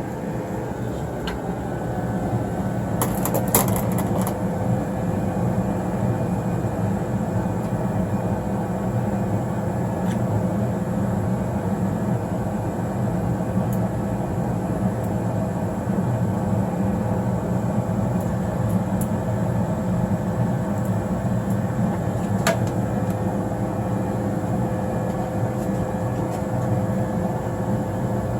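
A furnace blower runs with a steady, even hum and a thin constant tone. It swells slightly about two seconds in. There are a couple of sharp clicks of handling, one near the start and one late on.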